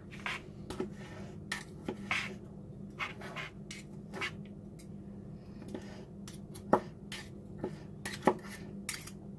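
Metal table knife and fork cutting cooked chicken on a paper plate: irregular scraping and light clicking of the cutlery, with two sharper clicks near the end.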